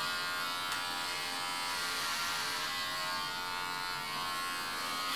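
Electric hair clippers buzzing steadily while shaving a head.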